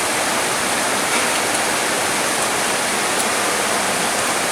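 Heavy tropical rain falling in a rainforest, a steady, dense hiss with no break.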